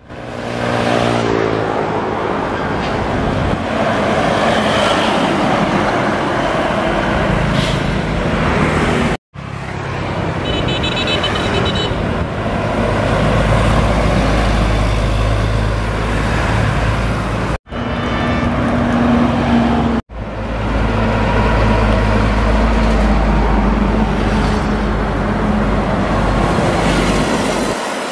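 Highway traffic: large passenger coaches and trucks passing close by, engines running and tyres on the road, with motorbikes among them. A horn sounds briefly about ten seconds in, and the sound breaks off suddenly a few times.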